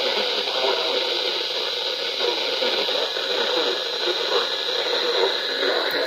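Radio speaker putting out static-laden, hissing reception, steady throughout, with a small click near the end.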